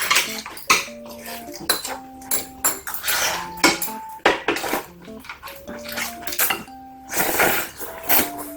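Eating utensils clinking and scraping against dishes in quick, irregular clicks, over background music of a simple melody of held notes.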